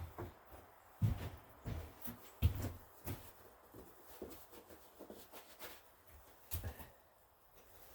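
Scattered light knocks, bumps and rustles of hands handling gear, with short quiet gaps between them.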